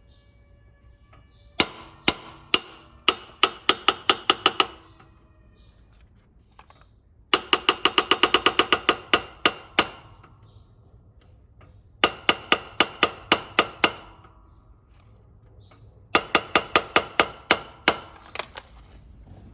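Hammer blows on metal in four runs of rapid strikes, each blow ringing, about five a second in the longest run; typical of knocking a hub or wheel bearing out during a hub bearing replacement.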